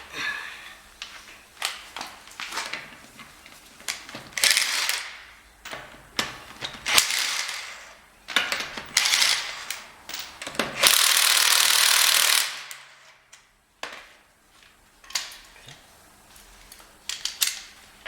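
Hand tools and car-jack work: ratchet-like clicking and metal clanking in irregular bursts, with a steady hiss lasting about two seconds just after the middle.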